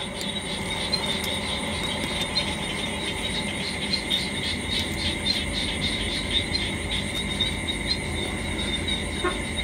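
Crickets chirping steadily in a fast, even trill, over a faint low rumble.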